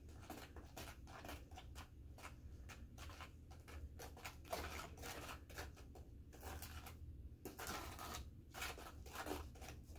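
A spoon stirring a gritty mix of sand, glue and liquid starch in a plastic bowl: a run of irregular scraping, grinding strokes with a nice gritty sound.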